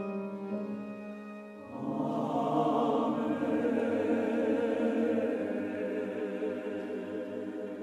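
Church choir singing a full, held chord with string and piano accompaniment. It enters loudly about two seconds in, after a few sustained notes from the cello, violin and piano.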